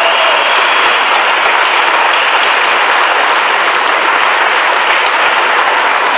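Audience applauding, a steady dense clapping that holds at one level throughout.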